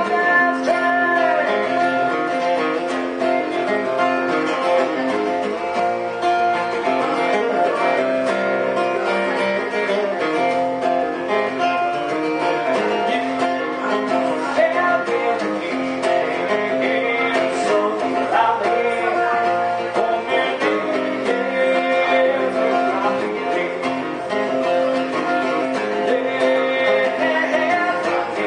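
A man singing a folk song while strumming an acoustic guitar.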